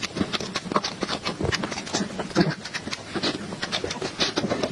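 Close-miked chewing and wet mouth sounds of someone eating cake: a quick, irregular run of soft clicks and smacks.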